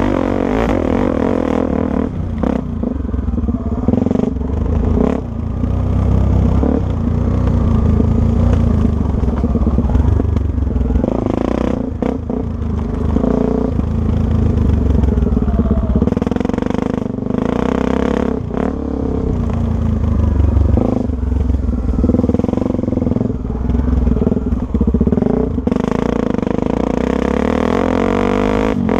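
Honda Tornado's single-cylinder four-stroke engine running as the motorcycle is ridden off-road, its pitch rising and falling with the throttle. Occasional knocks and clatter sound throughout.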